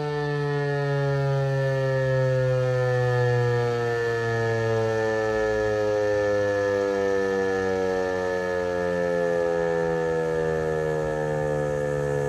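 Outdoor tornado warning siren winding down at the end of its test, one steady multi-tone wail sliding slowly lower in pitch, with a steady low hum beneath.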